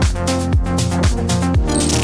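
Electronic dance music with a kick drum on every beat, about two beats a second, over a held bass line.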